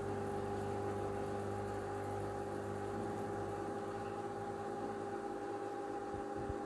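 A steady mechanical hum, holding a few constant tones without change.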